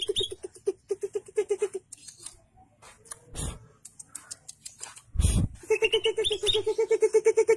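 Green leafbird (cucak ijo) singing: fast trains of low, buzzy repeated notes, about eight a second, with higher chirping notes above. The song breaks off for a few seconds in the middle, where two dull thumps sound, and starts again near the end.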